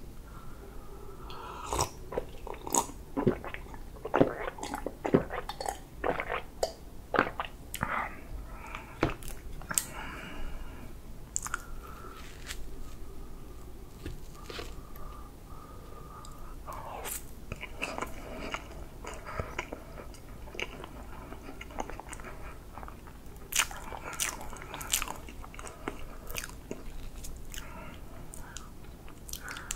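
Close-miked wet chewing and lip smacking on a mouthful of whipped cream chocolate cake, with many short sharp mouth clicks.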